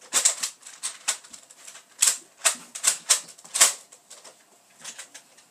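Quick irregular plastic clicks and clacks of a Nerf blaster being reloaded and handled, dense for about four seconds, then fainter and fewer near the end.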